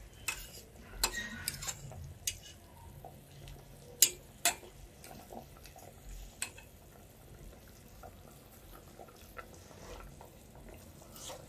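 Metal spoon stirring in a stainless steel pot of broth, clinking against the pot now and then; the sharpest clinks come about four seconds in.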